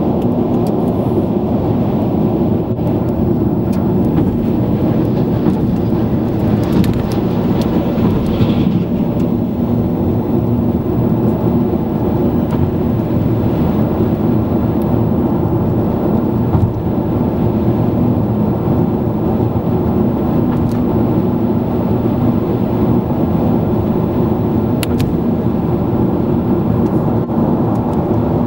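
Steady low rumble of a car's engine, tyres and road noise heard from inside the cabin while driving.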